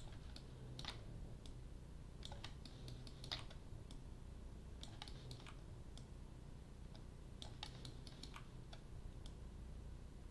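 Irregular, faint clicks of a computer mouse and keyboard, a few at a time with gaps between, over a steady low hum.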